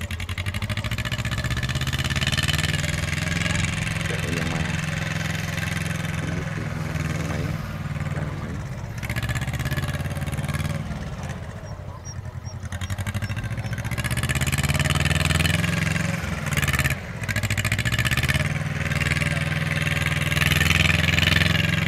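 Engine of a Yanmar YM2700 small diesel tractor running steadily while it pulls a trailer loaded with rice sacks. It grows louder as the tractor comes closer, with a brief drop in level about seventeen seconds in.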